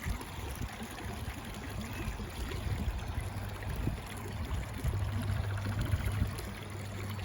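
Steady wash of outdoor traffic noise from a busy street, with the low hum of a vehicle engine coming in about three seconds in.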